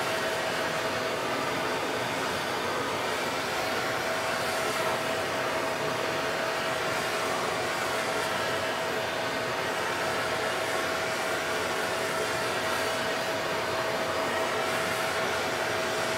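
Gas torch flame hissing steadily as it preheats an aluminium plate to 150–200 °C before electrode welding, with a thin steady high tone running underneath.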